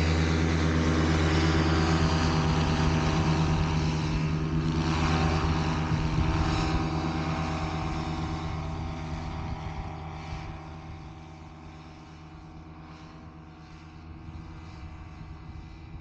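Paramotor's two-stroke engine running steadily, its sound fading from about four seconds in and settling quieter after about twelve seconds.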